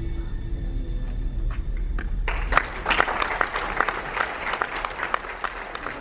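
The last notes of the music fade out, then a small audience starts clapping about two seconds in. The applause is dense for a few seconds and thins out near the end.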